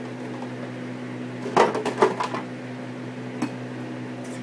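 Dishes and kitchen containers clattering as they are handled and set down: a short burst of knocks and rattles around the middle and a single click a little later, over a steady low hum.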